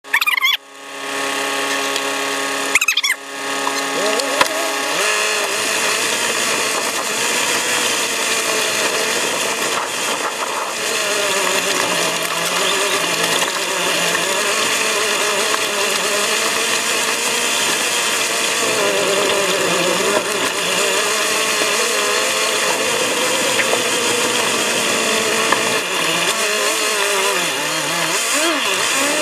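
Sped-up recording of a 4x4's engine running and labouring along a rough off-road track, its pitch wandering up and down as the revs change. The first few seconds are steadier, with a couple of clicks.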